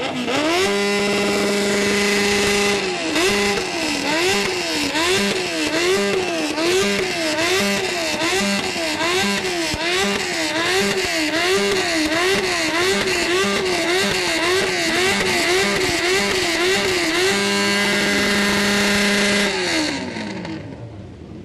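A siren: its pitch glides up, holds steady for a couple of seconds, then rises and falls in an even wail a little more than once a second. Near the end it holds steady again, then glides down and fades.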